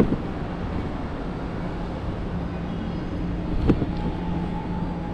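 Steady low rumble of passing vehicles in a city street, with a sharp knock about three and a half seconds in.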